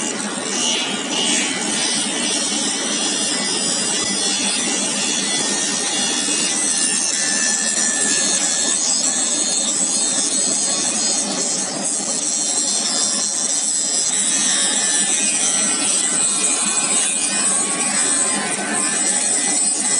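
Pulsed laser cleaning head ablating a weld seam, a steady harsh hiss with no breaks.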